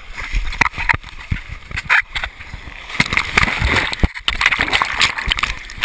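Water rushing and splashing over a GoPro camera riding down a waterslide, with many sharp knocks and bumps against the camera.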